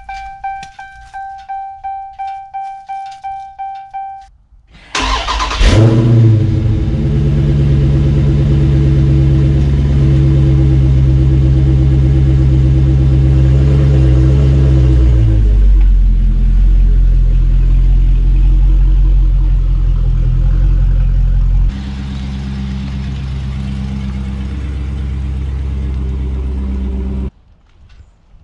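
A car's warning chime dings in a quick repeating series, then the Dodge Challenger Scat Pack's 392 (6.4-litre) HEMI V8 cranks and fires on a cold start with a sharp rev flare. It runs at a loud, high cold-start fast idle that settles to a lower idle about fifteen seconds in, drops suddenly in loudness later and cuts off near the end.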